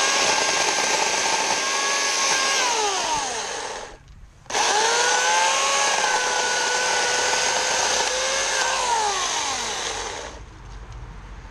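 Portland 14-inch, 9-amp electric chainsaw running in two bursts of about four to five seconds, cutting dead apple branches. Each burst starts abruptly at full speed, holds a steady whine, and winds down with a falling whine when the trigger is released.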